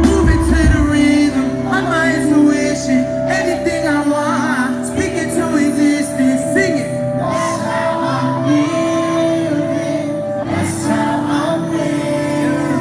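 Live hip hop music from a concert PA in a large hall, with sustained synth chords and a sung vocal line. The deep bass drops out about four seconds in and comes back near the end.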